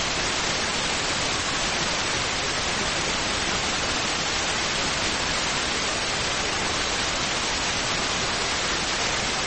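Steady static hiss, an even noise with no tones or breaks: the background noise of an old recording of a radio call-in programme.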